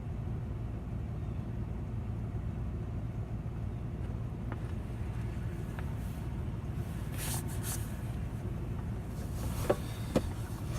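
2007 Dodge Dakota's 3.7 V6 running with a steady low rumble. Near the end come a few brief rustles and sharp knocks.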